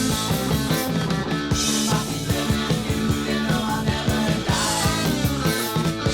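Rock band recording: drums, bass guitar and electric guitar playing together over a steady drum beat.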